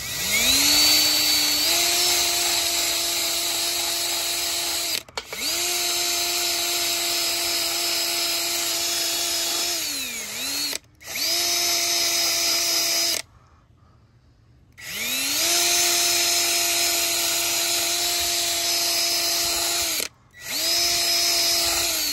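Cordless drill spinning a wire wheel against the steel trailer tongue, scrubbing paint and corrosion down to bare metal so the new jack gets a good ground. It runs in five bursts, each spinning up to a steady whine, with short stops and one longer pause about two-thirds of the way in.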